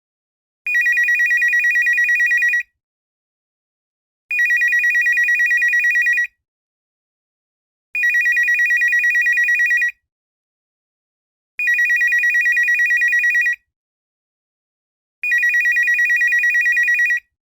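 Home telephone ringing with an electronic trill: five rings of about two seconds each, every ring a fast warble on two high tones, with silent gaps of under two seconds between rings.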